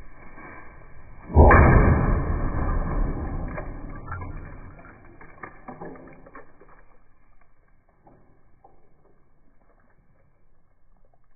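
Miniature cannon firing once about a second and a half in, after a short fuse fizz: a sharp, loud blast whose sound dies away over several seconds, with scattered ticks and taps as debris lands.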